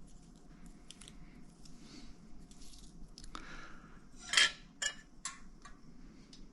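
Small metal tools being handled while measuring an engine's deck height: light scattered clicks, a louder metallic clatter about four seconds in, then two sharp clicks.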